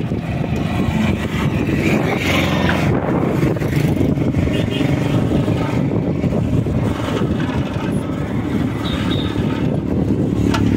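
Steady rumbling traffic and road noise on a highway, heard from a moving bicycle. Near the end a motorcycle's engine hum comes in close.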